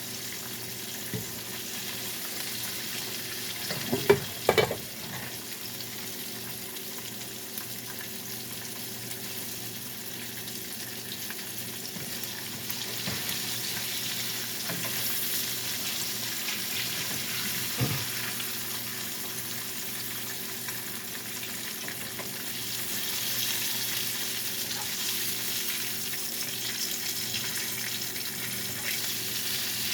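Salmon frying in oil in a skillet, a steady sizzle, with a few brief knocks about four seconds in and once more about halfway through.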